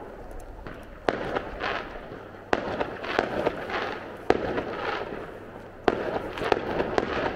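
Aerial firework shells bursting overhead. Five sharp bangs come about a second or two apart, and each is followed by a crackling tail.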